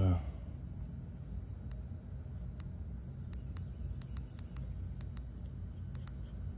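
Steady, high-pitched chorus of field insects. From about two seconds in, a series of short, sharp clicks: a handheld radio's keypad buttons being pressed.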